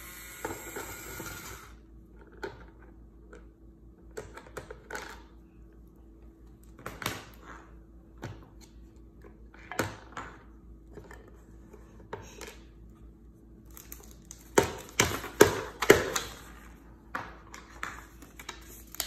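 Plastic toy nuts, bolts and shapes clicking and knocking against a toy tool box's pegboard as a small child handles them: scattered taps, with a busier run of louder knocks a little past the middle.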